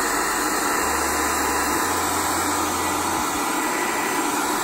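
Handheld hair dryer running steadily, blowing hot air close onto a self-adhesive screen patch to set its adhesive.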